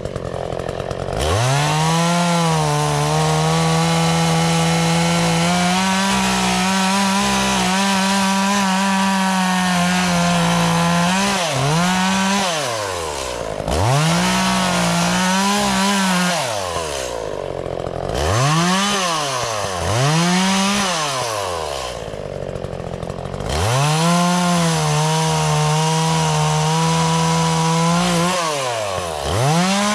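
Echo CS-400 two-stroke chainsaw revving up and held at full throttle through a long cut of about ten seconds. It is then revved up and let drop several times, and held at full throttle again through another long cut near the end.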